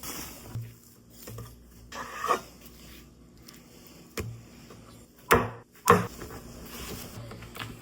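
Food-preparation handling sounds: a few sharp knocks on a wooden surface, the two loudest about half a second apart past the middle, with soft rubbing and shuffling between.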